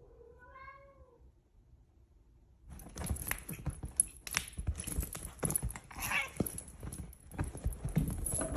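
A cat gives one short meow that rises and falls. From about three seconds in, two hairless Sphynx cats play-fight on a sofa, making irregular scuffling and soft thumps on the cushions.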